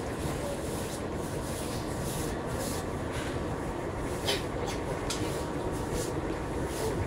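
Steady rumble of an electric commuter train running along the Moscow Central Circle, heard from inside the carriage, with a few short hissing crackles about four seconds in.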